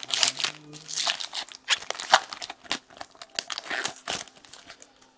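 A trading card pack wrapper being torn open and crinkled by hand: a run of irregular crackling rustles that dies away near the end.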